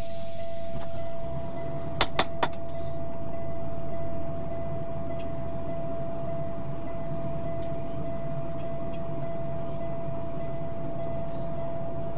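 A truck engine idling, heard from inside the cab as a steady low drone with a constant high whine over it. Three quick sharp clicks come about two seconds in.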